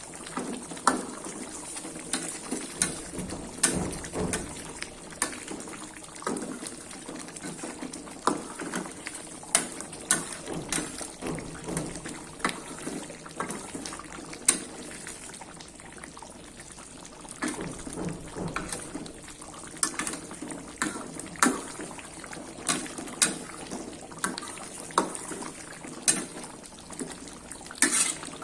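Water running and splashing in a kitchen, with frequent light clinks of a utensil or dish against a pot or bowl.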